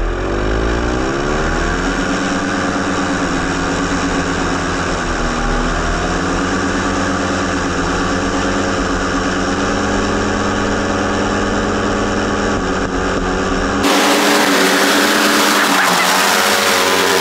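Hirth 2703 two-stroke twin-cylinder ultralight airplane engine driving a pusher propeller on a go-kart, revving up over the first two seconds and then holding a steady, very loud drone. About 14 s in it is heard from the roadside instead of on board, harsher and with much more hiss.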